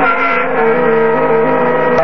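Home-built CNC milling machine cutting aluminium with a carbide end mill: a steady spindle whine over stepper-motor tones that jump between pitches several times a second as the axes move.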